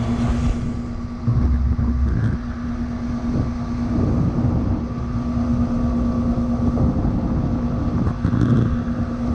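1985 York Champion IV 'Tombstone' air conditioner condensing unit running steadily, its Copeland CR reciprocating compressor giving a constant hum under the uneven rush of the condenser fan's air.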